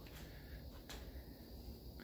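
Near silence: faint room tone with a low hum and two soft ticks.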